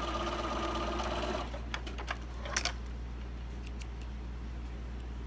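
Electric sewing machine stitching a boxed-corner seam with a steady hum. It stops about a second and a half in, and a few light clicks follow.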